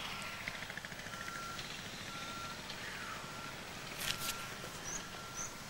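Faint electronic beep repeating about once a second over a steady outdoor hiss, with a couple of soft clicks about four seconds in and a few short high chirps near the end.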